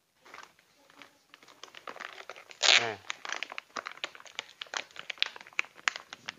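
Clear plastic bag of dried root chips crinkling and rustling as it is handled and opened, a dense run of small crackles. A short vocal sound from the man breaks in about three seconds in.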